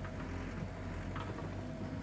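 Tractor engine running steadily, driving a power rake as it works the ground, with a constant low drone and a steady hum above it.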